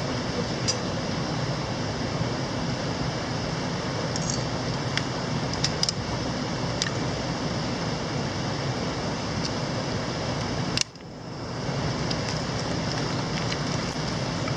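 Steady rushing of a mountain stream, with scattered small sharp clicks on top. About eleven seconds in, one sharper click is followed by a brief dip in the sound.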